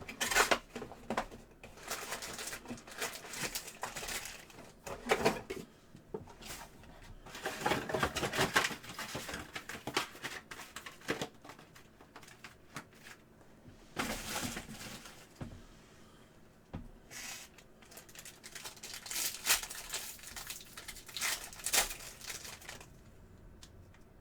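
A trading card pack wrapper being torn open and crinkled by hand, in several irregular bursts with short pauses between.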